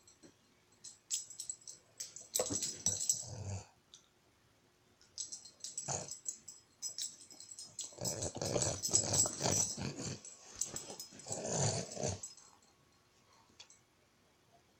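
Boston Terrier making growly play noises in short irregular bursts while mouthing and tugging at a ball held in a person's hand. The longest run comes in the second half, then it goes quiet near the end.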